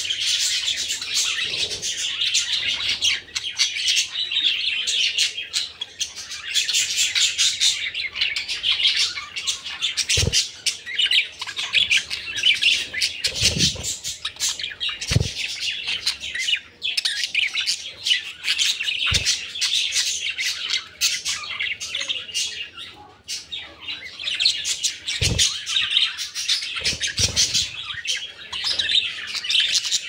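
Budgerigars chattering and warbling almost without pause, a dense run of quick high chirps and squeaks with short breaks, with a few dull thumps now and then.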